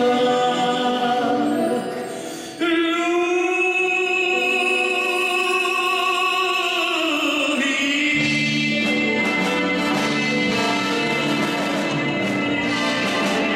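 A male singer with a string orchestra performing a song through a microphone. About two and a half seconds in he holds one long, steady note for roughly four seconds, and after it the orchestra holds a chord.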